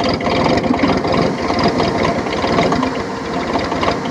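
Bobcat MT52's three-cylinder Kubota diesel being cranked by its starter on a cold start near freezing, glow plugs pre-heated, turning over in a fast even rhythm without yet catching.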